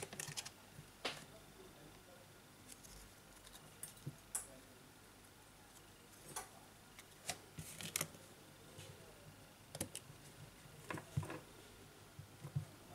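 Small scattered clicks and taps of plastic phone parts being handled as the upper plastic cover of a Samsung Galaxy S8+, with its flat charging coil, is unclipped and lifted off the midframe. About a dozen sharp ticks come at irregular intervals.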